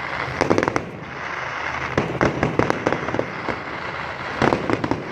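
Fireworks going off: rapid clusters of sharp cracks and pops, in three volleys about half a second in, around two to three seconds in and near the end, over a continuous background of distant bangs and crackle.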